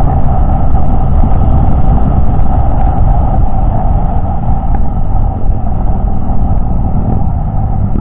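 Steady wind rush over the microphone and the running engine of a Suzuki Raider J 115 Fi underbone motorcycle cruising at speed on the highway.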